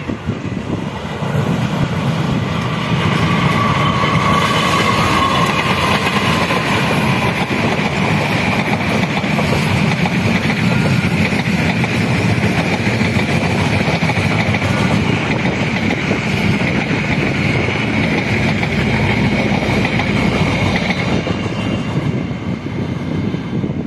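A diesel-hauled passenger train of stainless-steel coaches passing close by: engine rumble and wheels running on the rails, with a high steady wheel squeal. It builds over the first three seconds and eases near the end.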